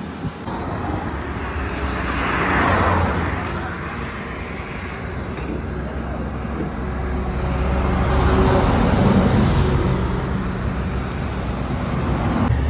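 Road traffic running past: a steady low rumble of engines and tyre noise that swells louder twice as vehicles go by, about two seconds in and again around eight to ten seconds.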